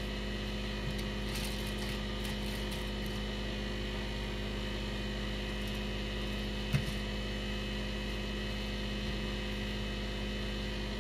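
Steady electrical hum made of several fixed tones, with faint light clicks of a small knife cutting through a raw potato held in the hand, and one brief sharp knock a little past halfway.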